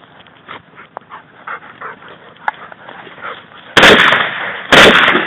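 Two shotgun shots about a second apart near the end, each a sudden loud blast that dies away. Before them a dog whimpers and yips faintly.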